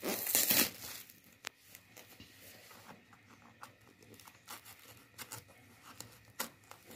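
Plastic packaging rustling and crinkling loudly for a moment at the start, then faint scratches and light clicks as fingers pick at the taped cardboard wrapping.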